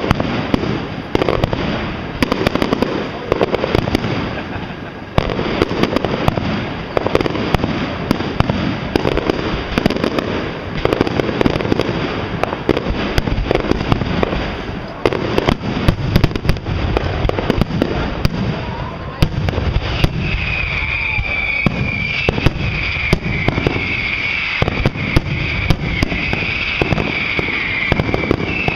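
Fireworks display: aerial shells bursting and crackling in a dense, irregular run of bangs, with people's voices underneath. Over the last third a high, wavering whistle-like tone sounds over the bangs.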